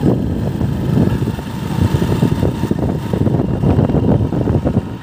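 Motorcycle on the move: steady engine and road noise, with wind buffeting the microphone in an uneven, flickering rumble.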